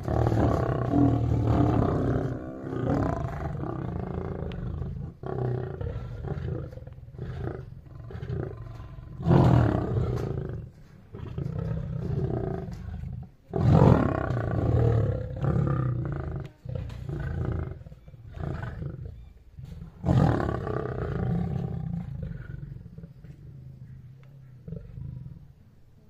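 African lionesses roaring and growling at one another in an aggressive standoff, the sign of lions squaring up to fight. The calling comes in about four loud surges and dies away near the end.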